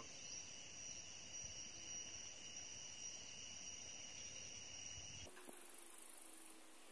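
Faint, steady, high-pitched insect chirring over quiet outdoor background; the background changes abruptly about five seconds in.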